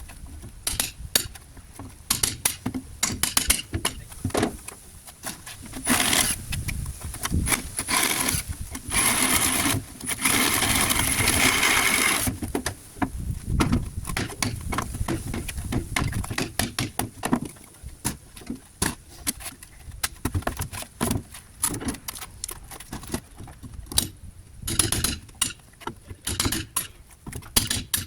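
Repeated sharp knocks of a hammer and crowbar on pallet boards, broken by short runs of a reciprocating saw with a demolition blade cutting through the nails, the longest lasting about three seconds starting about nine seconds in.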